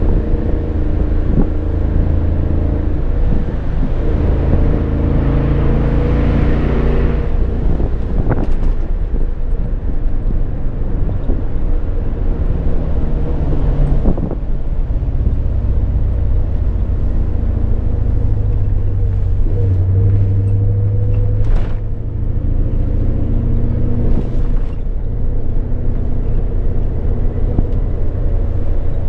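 Ford Mustang driving on a narrow, winding lane, heard from inside the cabin: a steady engine drone with tyre and road noise. The engine note shifts up and down with the throttle, and there are a few brief knocks along the way.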